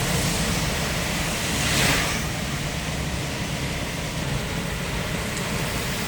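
Small truck driving in rain: a steady wash of rain and tyre spray over the engine's low hum, with a brief louder swell of spray noise about two seconds in.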